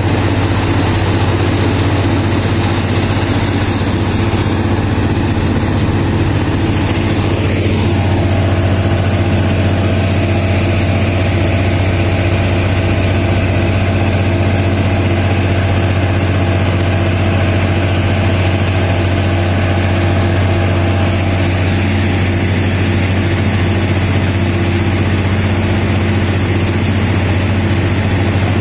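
Heavy mining machinery engine running steadily, a loud low drone. About eight seconds in a short falling whine is heard, after which a higher steady tone joins the drone.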